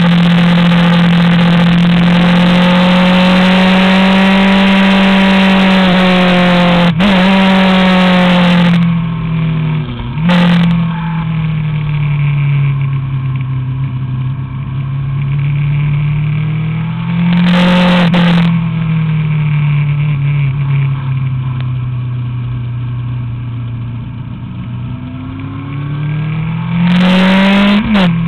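Honda CBR1000RR inline-four engine at high revs under full throttle, with a brief break in the note about seven seconds in like a gear change. After about nine seconds the throttle closes and the note drops and sags through the corners, swelling again in short bursts when the throttle is reopened. Near the end the revs climb and drop suddenly, like an upshift.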